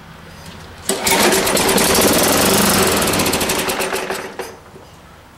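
Tecumseh-powered Craftsman push mower engine catching on a pull of the recoil starter and running with a fast, even firing beat for about three seconds, then fading out and dying.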